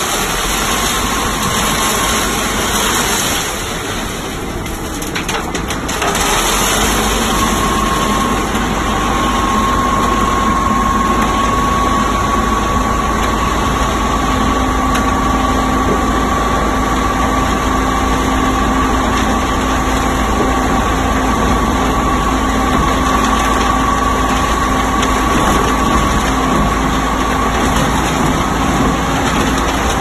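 A self-loading concrete mixer truck's engine running steadily under load as its loader bucket is lifted and tipped up over the drum. A steady whine joins it about seven seconds in and holds until near the end.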